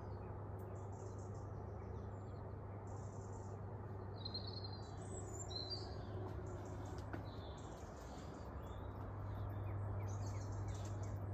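Birds chirping and calling in short, scattered calls over a low steady hum and faint background noise.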